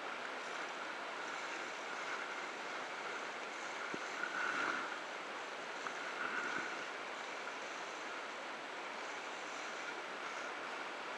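Sea water rushing and splashing along the wooden hull of a sailing schooner under way, with wind, as a steady wash; two louder surges come about four and six and a half seconds in.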